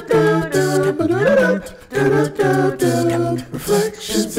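A cappella singing: a voice holding a run of short sung notes, a few of them sliding in pitch, with no instruments.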